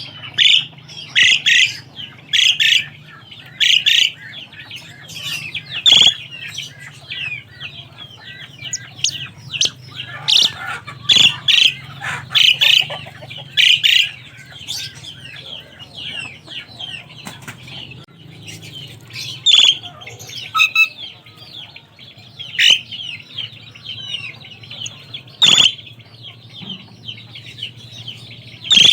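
Asian pied starlings (jalak suren) calling: a dense chatter of short high notes broken every second or two by loud sharp calls, over a low steady hum.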